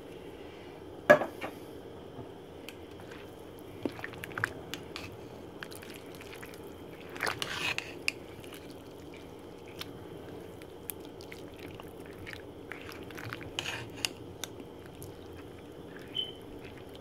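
A spoon stirring through a big metal pot of rice, coconut milk and vegetables, clinking and knocking against the pot: one sharp knock about a second in, a longer clattering scrape a few seconds later, and scattered light taps. A steady low hum runs underneath.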